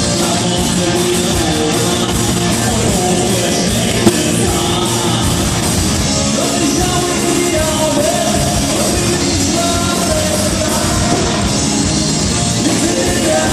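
A live rock band plays loudly with a singer's voice over the instruments, and there is a single sharp click about four seconds in.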